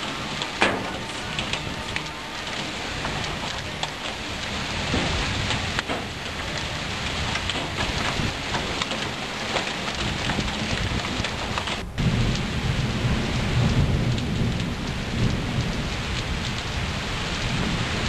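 Heavy rain mixed with hail pelting a garden in a thunderstorm, a dense steady hiss, with one sharp crack less than a second in. From about twelve seconds on, a low rumble of thunder sits under the downpour.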